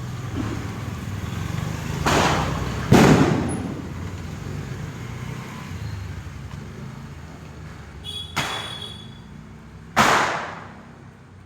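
Multi-shot firework cake (sky shots) firing at uneven intervals: two bangs close together about two and three seconds in, another about eight seconds in, and a loud one about ten seconds in, each ringing off afterwards.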